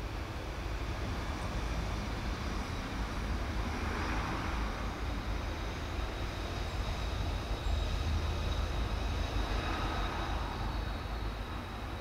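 Steady outdoor rumble of distant road traffic, swelling twice as vehicles pass: once about four seconds in and again from about eight to ten seconds in.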